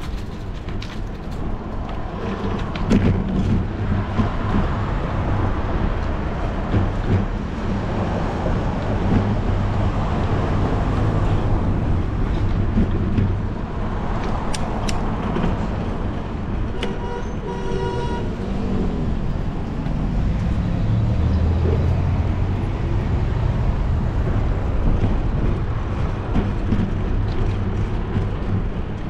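Steady riding noise from a bicycle on city streets: a low rumble of wind and road with car traffic around. A little past halfway, a short pitched tone like a horn sounds for about a second.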